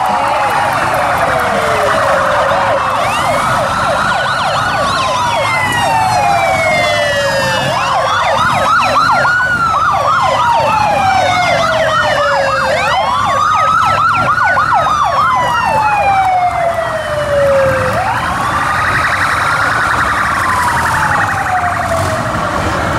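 Police motorcycle sirens sounding together: a wail that climbs quickly and falls slowly over about four seconds, over and over, overlaid through the middle by a faster yelping siren.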